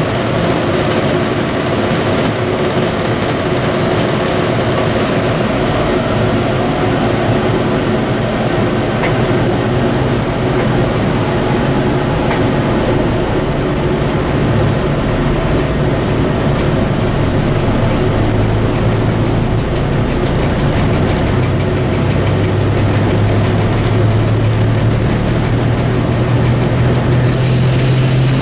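M62 diesel locomotive heard from its cab, its engine running steadily while hauling a loaded tank train, with wheel and rail noise throughout. The low engine note grows stronger over the second half.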